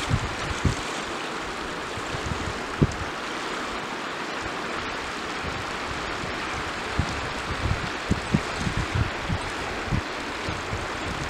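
Shallow river rushing over stones: a steady hiss of moving water. Short low thumps of wind on the microphone come now and then, most often in the second half.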